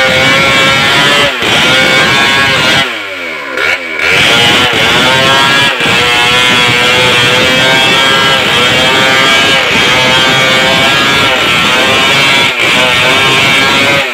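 Two-stroke chainsaw running at high revs while cutting along a coconut-lumber plank. About three seconds in the engine drops off briefly and revs back up a second later, then runs on at full throttle.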